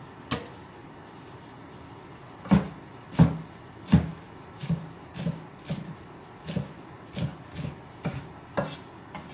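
Kitchen knife chopping fresh coriander on a thick round wooden chopping block, each chop a sharp knock on the wood. One chop about half a second in, then after a pause about a dozen chops at roughly two a second, the first few the loudest.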